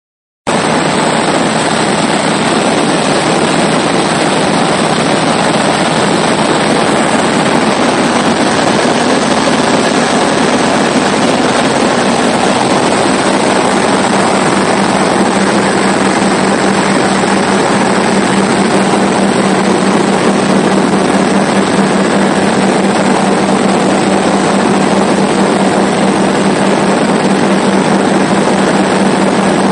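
Steady drone of a Comco Ikarus C42B ultralight's engine and propeller in flight, heard from inside the cockpit together with a dense rush of air. A low hum in the drone grows stronger about halfway through.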